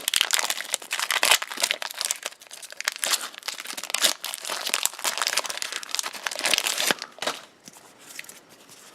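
Foil wrapper of a Pokémon TCG Sun & Moon booster pack crinkling and tearing as it is opened; the dense crackling dies down about seven seconds in.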